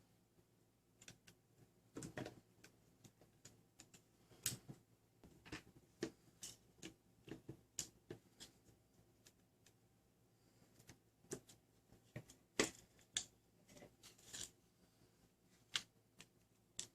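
Quiet, irregular clicks and taps of the Dart Zone Pro Mk2 toy blaster's plastic shell and its new extended barrel being handled, with a few sharper knocks scattered through.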